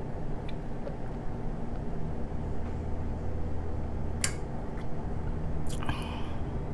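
A person drinking juice from a plastic wine glass: soft sips with a sharp click about four seconds in and another near six seconds, over a steady low hum of room noise.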